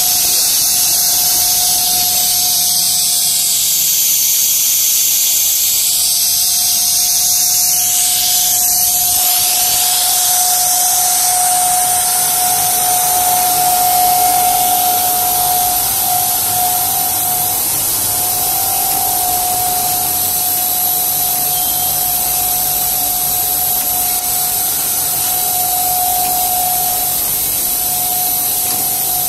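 Nylon pipe extrusion line running: a steady machine hiss and hum with a constant whine at one pitch. The hiss is strongest for the first nine seconds or so, then eases.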